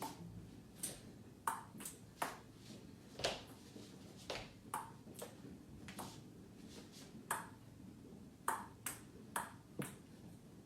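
A run of light, sharp taps of something small and hard being struck, irregularly spaced at about two a second, some ringing briefly.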